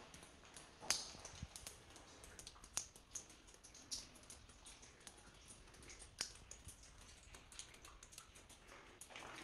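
Faint, irregular clicks and taps from a handheld phone being moved about while walking, with a few sharper clicks about a second in, near three and four seconds, and past six seconds.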